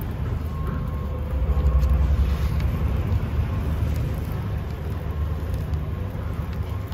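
Steady low rumble of road traffic, swelling a little about two seconds in.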